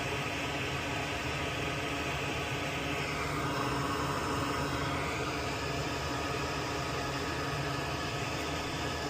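Steady hum and hiss of a running fan, with a slight shift in its tone around the middle.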